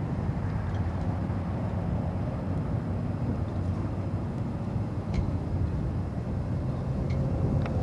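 Steady low rumble and hum of a Conrail diesel locomotive moving slowly along the track, with a few faint clicks.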